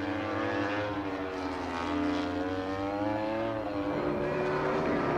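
Racing motorcycle engines at a race circuit, the pitch climbing slowly for a couple of seconds and then dropping back, over a low steady hum.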